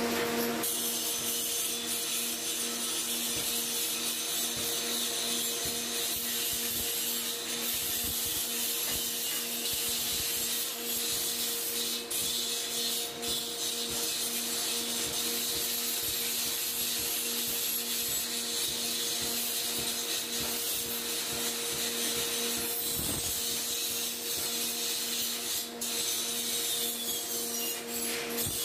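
Power grinder running steadily, its disc working against a workpiece: a constant motor hum under a continuous high grinding hiss.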